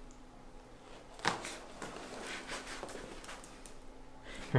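Cervical spine joints popping during a chiropractic neck adjustment: one sharp crack about a second in, followed by a few fainter clicks as the neck is turned. The patient's voice breaks in suddenly at the very end.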